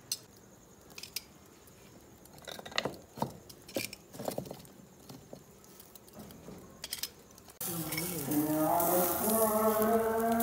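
Metal seekh skewers clinking against one another and the grill as they are turned over charcoal, in scattered sharp clinks. About three-quarters of the way through, background music with long sustained tones starts suddenly.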